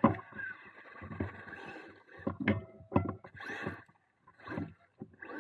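Irregular knocks, rattles and gravel crunching from a bicycle rolling over a rough gravel track, with the thin steady whine of a Traxxas Rustler 2WD RC truck's motor as it drives alongside. The loudest knock comes right at the start, and there is a brief lull a little before the end.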